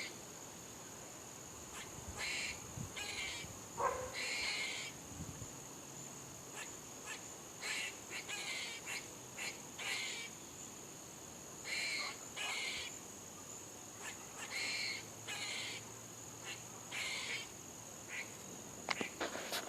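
Squirrels barking: about fifteen short, harsh alarm barks at uneven intervals, some in quick pairs.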